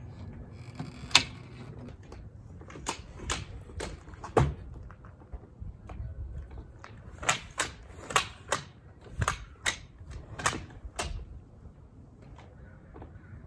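Metal telescoping ladder being pulled out, its sections snapping into place one after another: a series of sharp clicks, about five in the first half and about eight more in the second half.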